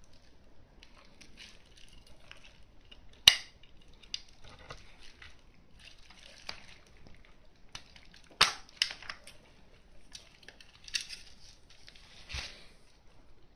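Sharp metal clicks and knocks from a Canon VI L rangefinder camera body being handled as its baseplate lock is turned and the bottom plate and back are taken off. The loudest click comes about three seconds in, with a quick cluster around eight to nine seconds and two more near the end, over faint rubbing of hands on the body.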